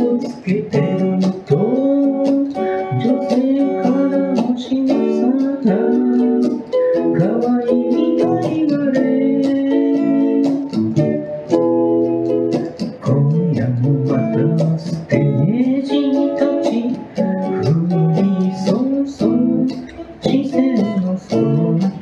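A live solo song: a small electric guitar being played, with a sung melody line over it.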